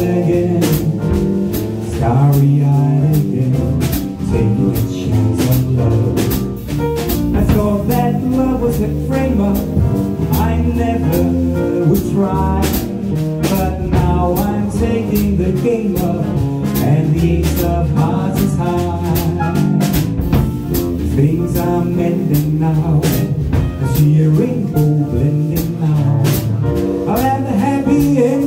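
A small acoustic jazz band playing live, with drum kit, acoustic guitar and double bass under a lead melody line.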